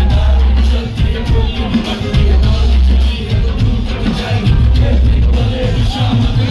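Live hip-hop performance through a concert PA: a loud beat with long, heavy bass notes about every two seconds and vocals into microphones.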